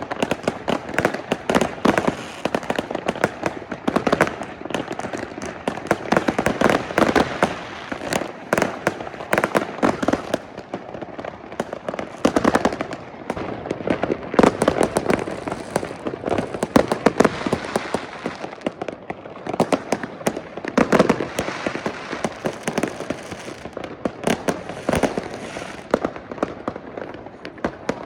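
Many consumer fireworks and firecrackers going off at once across a neighborhood: a dense, unbroken barrage of bangs and crackling that never lets up.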